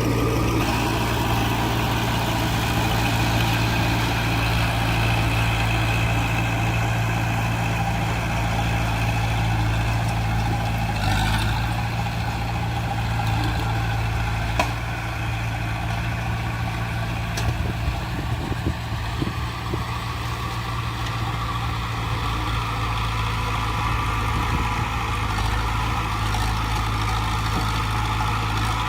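Heavy construction-machine diesel engine running steadily at a low, even speed, with one sharp click about halfway through.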